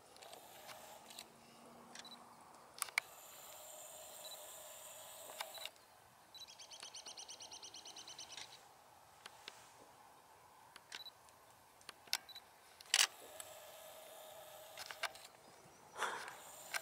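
Quiet outdoor ambience with a faint steady hiss and scattered sharp clicks and knocks. About six seconds in, a rapid high-pitched pulsed trill runs for about two seconds.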